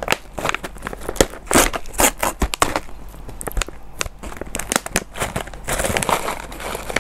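Crinkly snack packaging being handled close to a clip-on lavalier microphone: a dense run of sharp crackles and rustles, thickening into a continuous rustle near the end.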